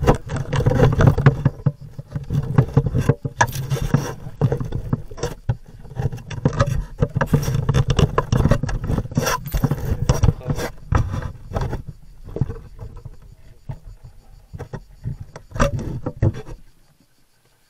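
Handling noise on a trail camera's own microphone as it is being mounted: close scraping, rubbing and irregular knocks of hands working on the camera. The noise cuts off suddenly near the end.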